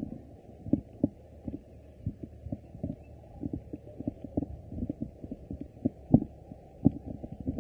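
Irregular dull thumps about two a second, the loudest a little past six seconds in: footsteps of several people walking, picked up by a portable tape recorder carried along, with a muffled sound.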